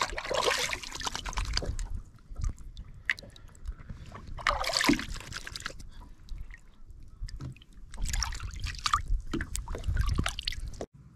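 Lake water splashing and sloshing around a hand and a bass held in the water beside a kayak, in several bursts, the last and strongest as the fish kicks free. The sound cuts off suddenly near the end.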